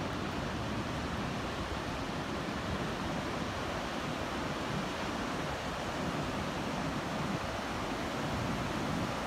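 Steady, unbroken wash of Pacific Ocean surf breaking offshore, with no single wave standing out.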